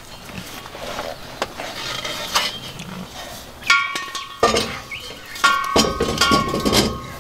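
Light clicks and rustling of handling, then from about halfway through several sharp metallic knocks and clinks, each leaving a brief ringing tone. They come from a propane hose's brass fitting and hands knocking about a steel propane cylinder and its metal compartment.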